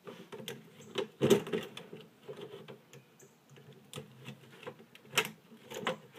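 Irregular clicks, taps and rattles of a screwdriver and needle-nose pliers working on the plastic housing of a DVD player's disc reader as it is taken apart. The loudest clatters come about a second in and again near five seconds.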